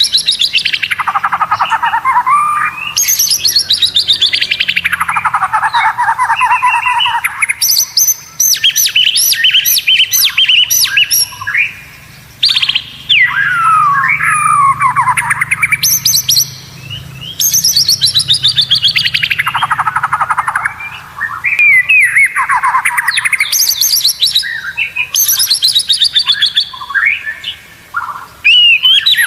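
White-rumped shama (murai batu) singing loud, fast rattling trills that sweep down in pitch, one phrase after another with short breaks, mixed with quick whistled notes.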